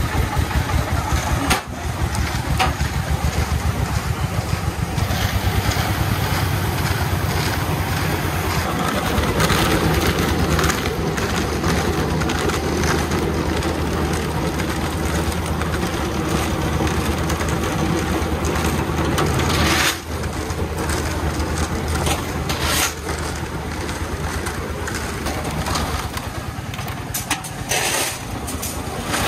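A công nông tipper's single-cylinder diesel engine chugs at idle with its dump bed raised. About nine seconds in, this gives way to a drum concrete mixer running, its drum turning and the mix churning inside. Near the end come a few scraping clatters as wet concrete tips out into a wheelbarrow.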